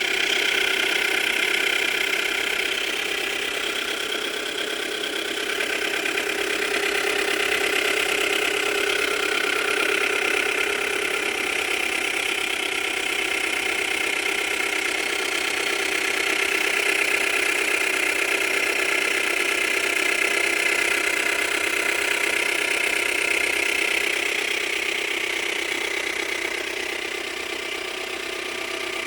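Subaru Tribeca B9's EZ30 flat-six engine running steadily with a knock from inside the engine. The owner suspects the timing chain tensioners; the oil level is normal.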